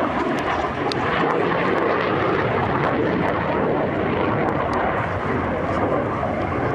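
MiG-21 fighter's single turbojet engine, a steady loud rushing roar as the jet flies its display overhead.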